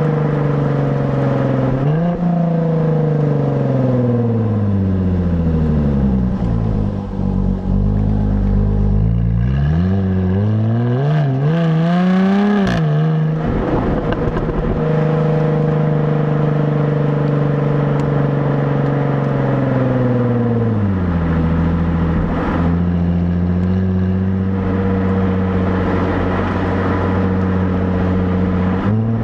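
Stock exhaust of a 2017 Jaguar F-Type, heard from the rear of the car. The engine note falls as the car slows for the first several seconds, then climbs under acceleration to a sharp break about 13 s in as it shifts gear. It then holds steady while cruising, and drops to a lower steady note about three-quarters of the way through.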